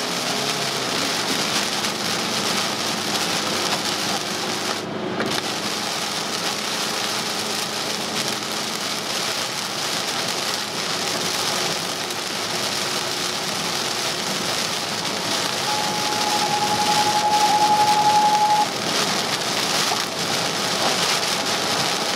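Heavy rain pelting a car's windshield and roof at highway speed, with the hiss of tyres on a flooded road. The rain noise drops out for a moment about five seconds in as the car passes under an overpass. A steady single tone sounds for about three seconds near the end.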